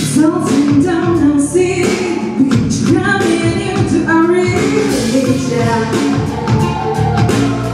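A woman singing a song with instrumental accompaniment and a steady percussive beat.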